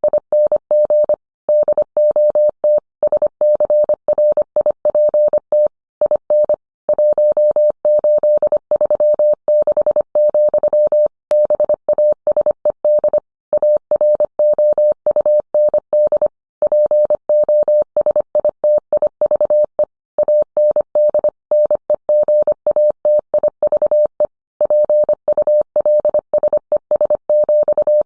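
Morse code sent as a single steady tone, keyed on and off in quick dits and dahs, with short pauses between words.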